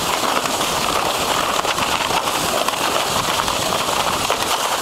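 A sled sliding fast down a packed-snow track: a steady crackling, scraping hiss of snow under the sled.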